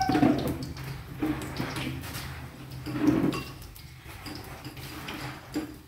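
Spoon clinking and tapping in a small bowl and against a metal wok, in irregular short knocks over a low steady hum.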